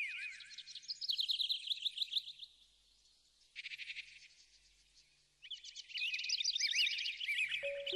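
Small birds chirping: many quick, repeated calls overlapping, broken by two short pauses. Soft music with steady held notes begins near the end.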